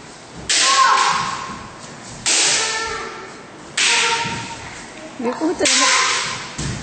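Kendo kiai shouts with bamboo shinai strikes: four loud cries, about one every second and a half, each starting sharply and fading slowly.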